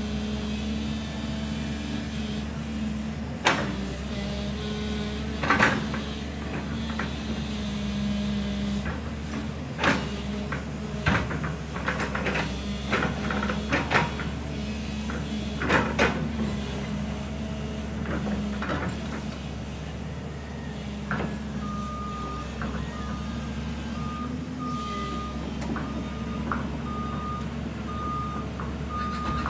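JCB tracked excavator's diesel engine running steadily while the bucket digs, with a series of sharp knocks and clanks through the middle. About two-thirds of the way in, a warning alarm starts beeping steadily, roughly once every three-quarters of a second.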